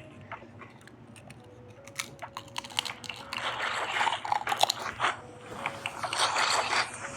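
Crunchy chewing and biting, in clusters of short crackling clicks, heaviest in the second half.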